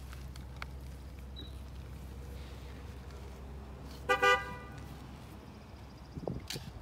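A vehicle horn gives a brief double toot about four seconds in, over a steady low background hum.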